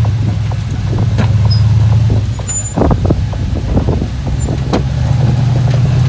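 Off-road rig's engine running at low, steady revs while crawling, with scattered knocks and clunks over the top; the drone drops off briefly about halfway through, then picks up again.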